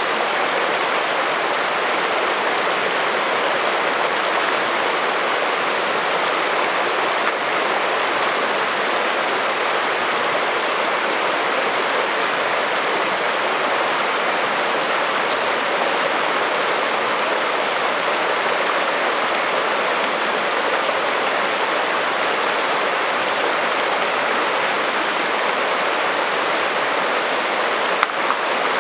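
Shallow alpine creek rushing over a bed of rocks and cobbles in a steady, unbroken rush of water, with one brief click near the end.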